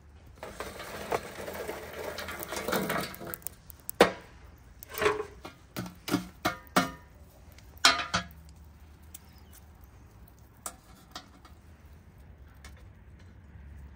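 Cooking handling sounds: a few seconds of scraping and rustling, then a run of sharp knocks and clatters, several in quick succession, thinning out to a couple of isolated knocks later.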